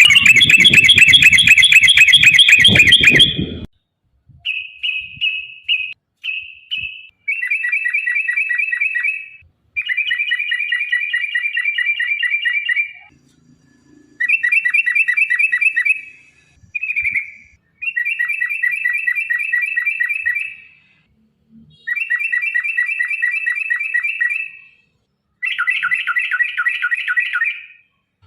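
Yellow-vented bulbul (trucukan) song: a series of rapid rattling, chattering phrases, each two to three seconds long, repeated with short pauses. The first phrase is the loudest.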